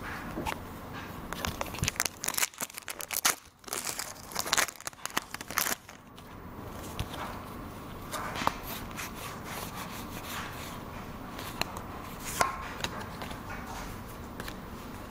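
Pokémon booster pack's foil wrapper being torn open and crinkled: a dense crackling rustle for about four seconds, starting a second or so in. This is followed by quieter scattered clicks and rustles of the cards being handled.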